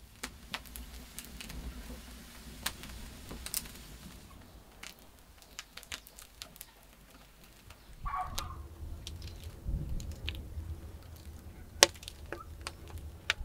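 Dry twigs burning inside a clay tandoor, crackling with irregular sharp pops; the sharpest pop comes near the end. A low rumble joins about eight seconds in, with a brief bird call at about the same time.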